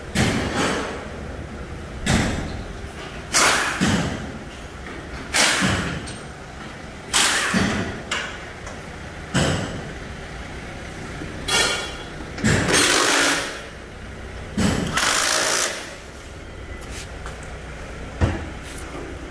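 Loud metal banging on a car lift's steel frame, about ten blows one to two seconds apart, with a couple of longer, rougher clattering noises near the middle.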